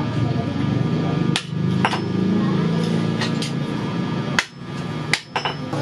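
Hammer blows on a red-hot leaf-spring steel axe-head on an anvil: about half a dozen sharp strikes at uneven intervals, over a steady low drone.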